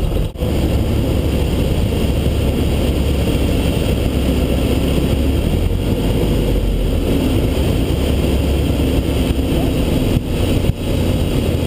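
Citabria light aircraft's piston engine and propeller running steadily, heard from inside the cockpit, with a rushing air noise over it. The sound dips briefly just after the start and twice near the end.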